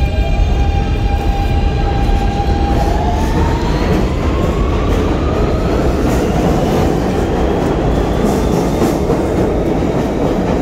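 R160 subway train pulling out of the station: its traction motors whine and rise steadily in pitch as it accelerates, over a loud rumble of wheels on rail and a few clacks of the wheels.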